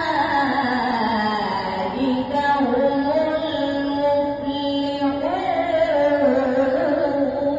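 Quran recitation (tilawat) by a young male reciter through a microphone and PA: one long, melodic, drawn-out phrase. The voice slides down over the first couple of seconds, then holds and ornaments its notes, and the phrase ends near the end and dies away into the hall's echo.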